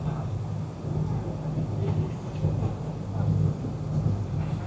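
Tour boat's engine running with a steady low drone.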